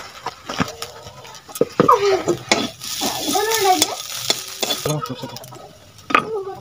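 A long steel spatula stirring and scraping food that sizzles as it fries in oil in a steel kadai over a wood fire, with clicks of metal on the pan; the sizzle is loudest from about two seconds in and dies away near the five-second mark. A few short rising-and-falling calls sound alongside.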